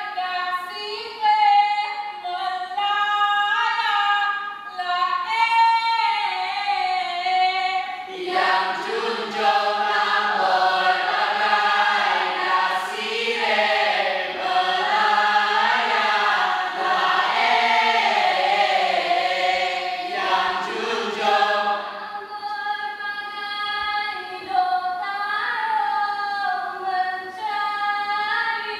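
A group of voices singing a Mek Mulung song in unison, unaccompanied. About eight seconds in, more voices including lower ones join and the singing grows fuller, thinning again a little after twenty seconds.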